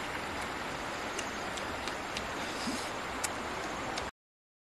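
Steady rushing of a stream flowing over stones, with a few faint scattered clicks. It cuts off abruptly about four seconds in.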